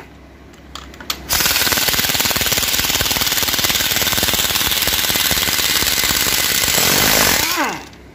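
Impact wrench hammering as it loosens the bolts of an automatic transmission's rear cover. It starts about a second in with fast, even blows and stops near the end as the motor winds down with a falling whine.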